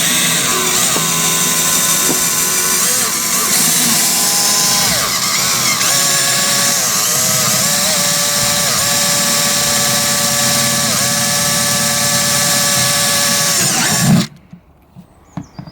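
Electric drill running and boring drainage holes in the bottom of a bucket, its pitch dipping now and then as the bit bites. It stops suddenly about fourteen seconds in.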